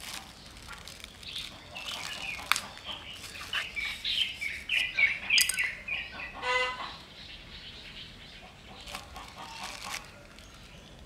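Small birds chirping, busiest from about two to six seconds in, with one short nasal call about six and a half seconds in. A few sharp clicks mixed in.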